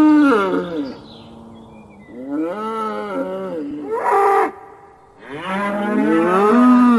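A bull mooing in a series of drawn-out calls that rise and fall in pitch: one call trails off in the first second, another comes about two seconds in, a short sharp call follows near four seconds, and a long call starts a little after five seconds.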